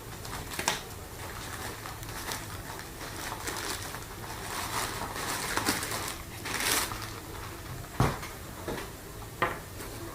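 Packaging being handled and opened: rustling with scattered clicks and knocks. A sharp knock comes just under a second in, a longer rustle a little past halfway, and two more sharp knocks near the end.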